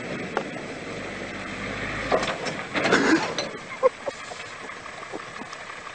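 A truck's engine running as the truck drives across snow, over a steady background of noise, with a few brief, sharper sounds about halfway through.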